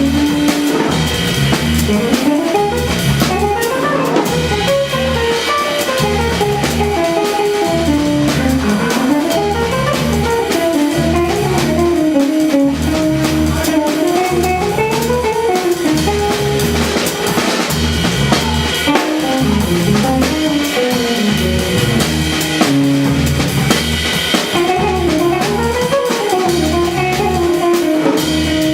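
Jazz trio playing a jazz standard: a guitar line winding up and down over a steady bass pulse and drum kit.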